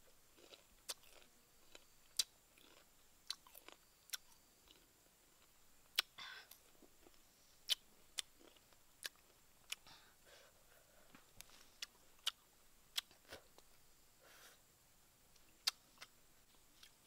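A person biting and chewing crisp star gooseberries, with sharp wet crunches coming irregularly about once a second.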